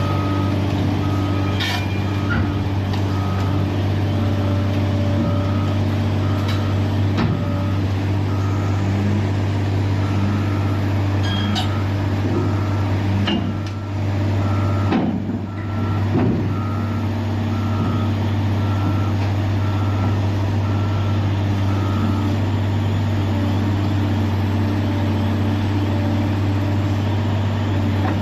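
Heavy diesel engine running steadily with a backup alarm beeping about once a second, one steady pitch, stopping about three-quarters of the way through. A few short knocks are heard in the middle.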